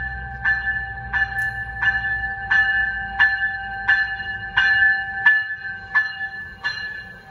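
Diesel locomotive's bell ringing steadily, about three strokes every two seconds, as the commuter train pulls into the station. A low engine rumble underneath fades out about five seconds in as the locomotive passes.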